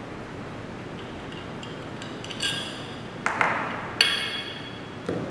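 Tubular steel frame leg of an airless paint sprayer being worked loose and lifted off: a few light metal clicks, then two sharp metallic clinks that ring on, about three and four seconds in.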